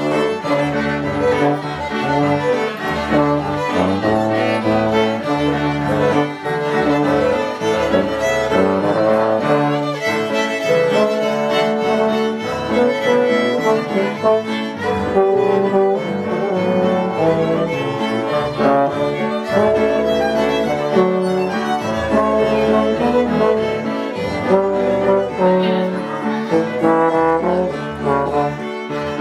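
Small acoustic ensemble playing a tune: fiddles carry the melody while low wind and brass instruments, a bassoon and a large brass horn, sustain the bass notes underneath.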